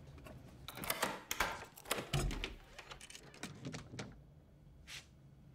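Metal clicks and rattles of a door's locks and latches being undone, with a heavier thump about two seconds in, then the wooden door being pulled open a crack.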